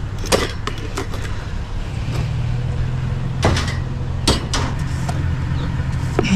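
A tightly jammed part being worked loose by hand on a piece of scrap e-waste: a few sharp clicks and knocks, the loudest two about three and a half and four and a quarter seconds in, over a steady low hum.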